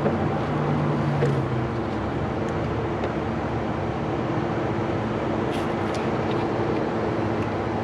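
Steady mechanical hum and hiss, with a few light clicks about five and a half to six seconds in.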